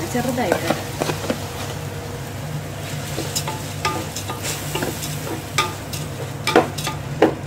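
Wooden spatula stirring and scraping cooked rice into fried vegetables in an aluminium pot, with scattered scrapes and clicks and two sharp knocks on the pot near the end, over a steady low hum.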